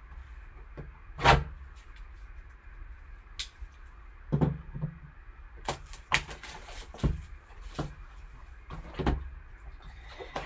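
A cardboard trading-card box being opened and its contents pulled out by gloved hands: scattered sharp clicks and taps of cardboard, with a short stretch of rustling wrapper about six seconds in.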